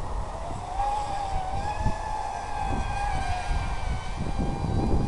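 Electric motors and propellers of an FPV model aircraft in flight, a whine whose pitch wavers up and down with the throttle. Gusty wind rumble on the microphone runs beneath it.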